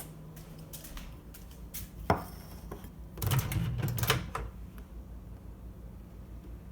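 Clicks and knocks of a microwave door being opened and a bowl being set inside, with one sharp knock about two seconds in and a flurry of clicks a second later.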